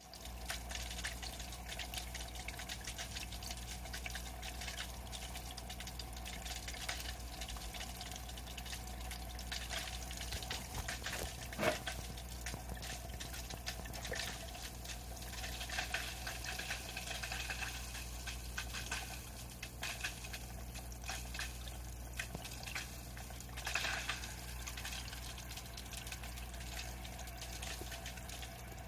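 Kotobuki Profit Filter Big hang-on-back aquarium filter running: a steady motor hum under splashing, pouring water, with irregular clicking and crackling. The impeller is catching air that leaks in at the flow-adjustment knob.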